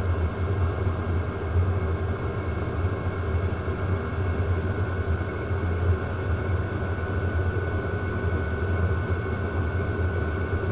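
WIPPRO 12-volt diesel heater running without its exhaust muffler: a steady low hum with a thin, even high whine over it, and no fuel-pump ticking to be heard.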